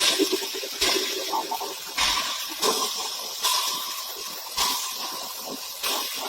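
A spray hissing in about seven bursts, each starting abruptly and tailing off.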